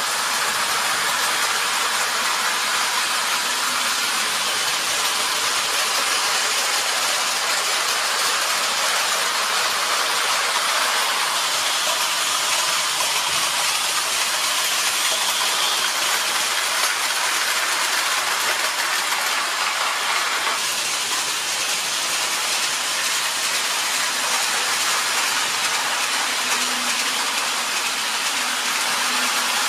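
Steady rolling noise of O-scale tinplate electric model trains running on three-rail metal track.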